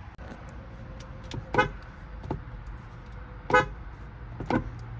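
Car horn giving three short toots, the first about a second and a half in and the last two close together near the end, over a steady low background rumble.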